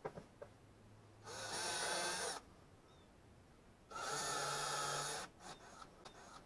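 A small power tool runs in two short bursts of about a second each, one about a second in and one about four seconds in, in the middle of fitting the bottom of a wooden box with screws.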